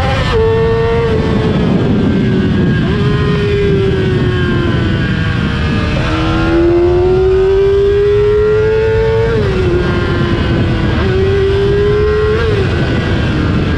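Yamaha R6 inline-four engine through an Akrapovic exhaust, under way. The revs climb steadily, longest for about three seconds in the middle, and then drop sharply, about four times in all, at gear changes or throttle lifts.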